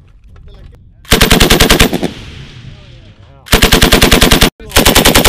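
M240L machine gun firing three short bursts of automatic fire, each just under a second of rapid, evenly spaced shots. The first burst leaves a fading echo, and the last two come almost back to back.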